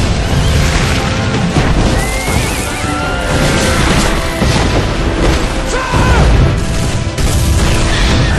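Battle-scene soundtrack: music under loud, continuous battle noise with deep booms of cannon fire and crashes.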